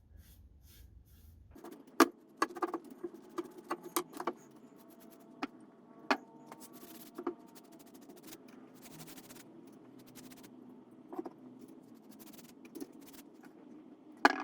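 A scattering of sharp clicks and knocks from things being handled, several with a short metallic ring. They come in a quick cluster a couple of seconds in, then spaced out, over a low steady hum.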